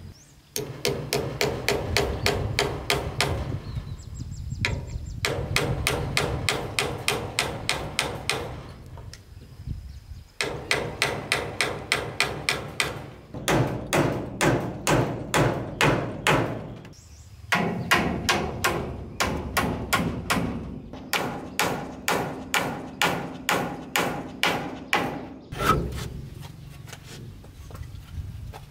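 Hammer blows on wood, struck quickly at about three a second in runs of several seconds with short pauses between them.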